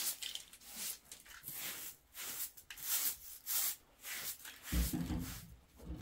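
Short hand broom sweeping a floor in brisk strokes, about one and a half a second, with a low thump near the end.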